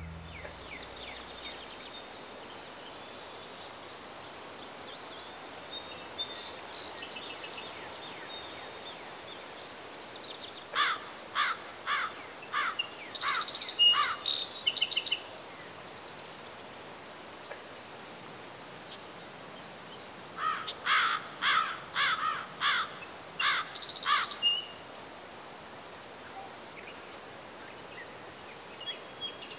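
Outdoor ambience of insects droning steadily at a high pitch, with a bird calling in two runs of sharp, repeated notes, the first about eleven seconds in and the second about twenty seconds in.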